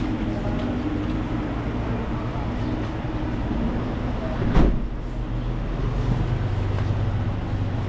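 A vehicle engine running at idle, a steady low rumble under street noise, with one sharp knock a little past halfway.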